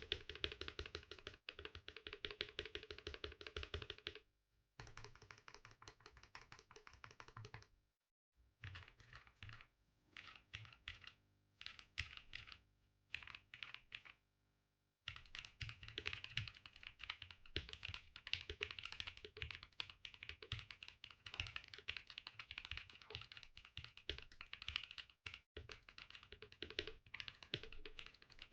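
Typing on an Akko 5075B Plus V2 mechanical keyboard fitted with Gateron Milky Yellow linear switches and PBT doubleshot keycaps. The keystrokes come in fast, dense runs, with brief pauses about four, eight and fourteen seconds in.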